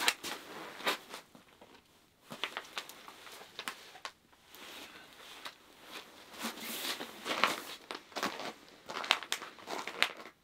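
Irregular crinkling and rustling with scattered small clicks and taps: a plastic water bottle being handled and clothing rustling as a man moves about.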